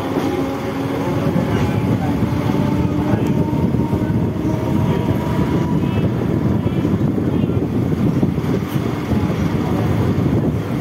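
Steady rumble of a moving train heard from aboard: wheels running over the rails, with wind noise and a faint whine that fades out about halfway through.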